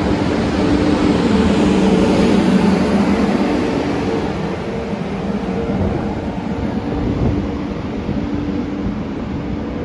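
SJ X2000 high-speed electric train running along the platform: wheel and rail noise with a steady low hum, loudest about two seconds in, then easing off.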